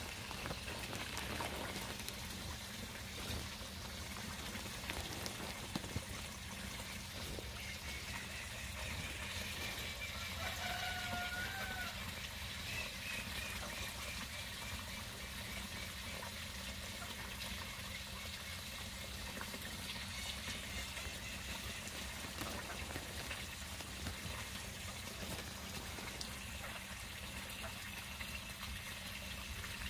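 Water pouring steadily from a fountain spillway into a duck pond, with one brief faint bird call about eleven seconds in.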